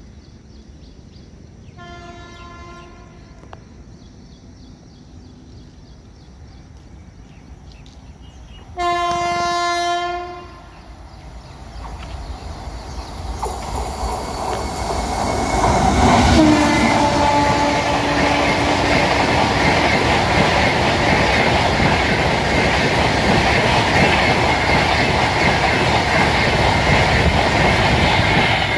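WAP-7 electric locomotive hauling the Deccan Queen express sounds its horn: a short blast about two seconds in, then a longer, louder one about nine seconds in. The train's rumble then builds until the locomotive rushes past about sixteen seconds in with a brief falling note. The coaches follow at high speed with a steady loud rush and wheel clatter.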